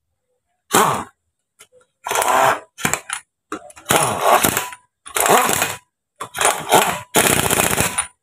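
Impact wrench hammering in about seven short bursts, each lasting about a second or less, as it runs on and tightens the wheel nuts of a car's front wheel.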